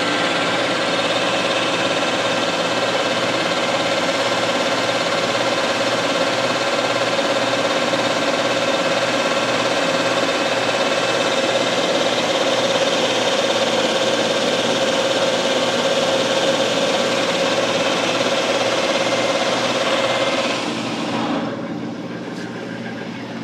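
Manual engine lathe taking a turning cut with a CNMG insert tool on a snowmobile shock shaft, about 25 thousandths per side, the carriage fed by hand. The cut makes a steady cutting noise with a held tone. About 21 seconds in it stops as the tool leaves the work, leaving the lathe running more quietly.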